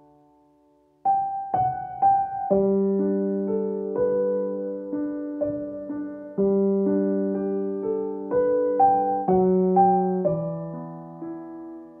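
Calm background piano music: after a brief near-silent pause, slow piano notes and chords begin about a second in.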